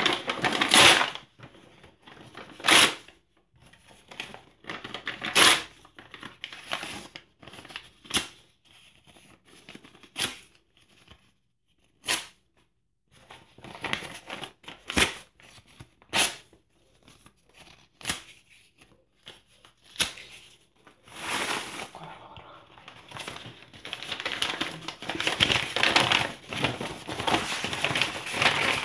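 Printed paper documents torn by hand in short, sharp rips, about one every two seconds, with quieter paper rustling between. Toward the end the sound turns into a denser, continuous rustling and crinkling of paper.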